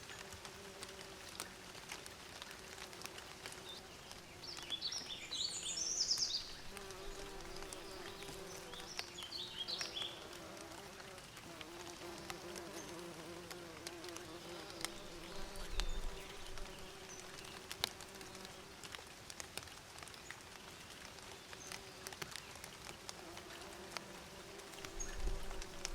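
Bees buzzing steadily, the hum wavering slightly in pitch, with short bursts of bird chirping about five seconds in, again around nine seconds, and near the end.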